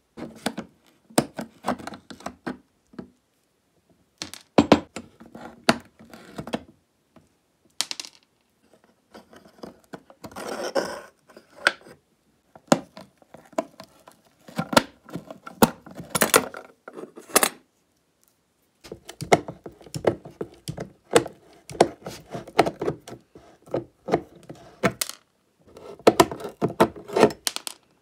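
Pliers and end-cutting nippers biting and prying at the rusty rivets of a suitcase's metal latches: bursts of sharp metallic clicks, scrapes and knocks, with short pauses between them.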